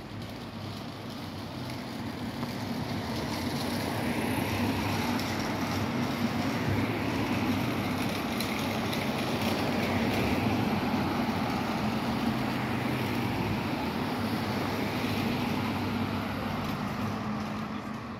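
Road traffic: cars driving past on a city street with engine hum and tyre noise. It builds over the first few seconds, stays loud through the middle and eases off near the end.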